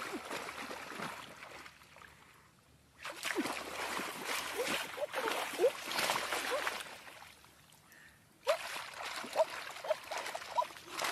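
Shallow muddy water splashing and dripping as someone wades and gropes in it by hand, in three spells with two short lulls between.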